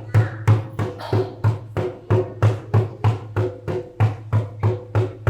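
Music: a steady drum beat of about three even strikes a second, each a deep thud with a short ring.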